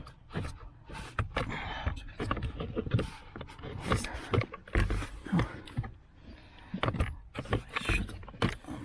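Irregular knocks, clicks and scrapes of hard plastic being handled and pushed into place as a Ford Focus Mk II fuse box is worked back onto its bracket.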